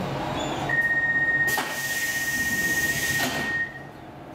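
Stockholm C14 metro car's door-closing warning: one steady high beep lasting about three seconds. Partway through it comes a hiss with a knock at its start and end as the sliding doors close.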